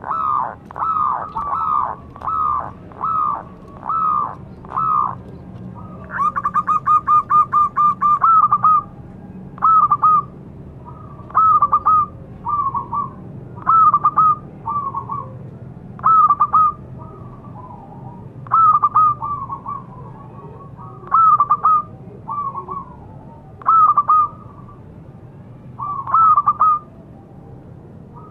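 Zebra dove (perkutut) cooing. First comes a row of separate notes about one every two-thirds of a second, then a fast rattling trill about six seconds in. After that, short clipped coos come in groups of two or three every second or two.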